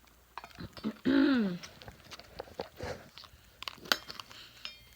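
Cockatoo chewing and crunching at material while building in its hiding spot: irregular crackles and sharp clicks. A short voice with a falling pitch is heard about a second in.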